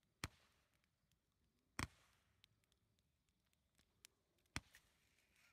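Near silence broken by three faint, sharp pops a couple of seconds apart: fireworks going off.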